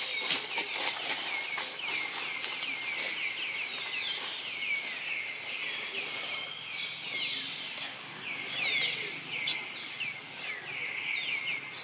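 Forest background: a dense, continuous chorus of quick chirps, each falling in pitch, with a faint high tone coming and going.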